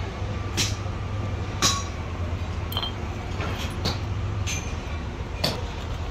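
Sharp metallic clinks, roughly one a second, as a steel seal housing from a hydraulic breaker and its rings are handled and fitted with seals, over a steady low rumble.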